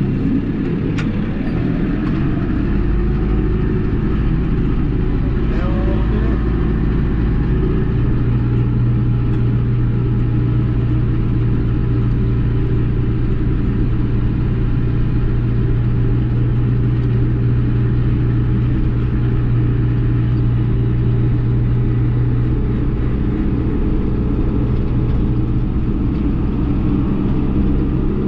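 Case 1090 tractor's diesel engine running steadily with the PTO driving the sprayer, a deep steady drone that grows stronger about eight seconds in.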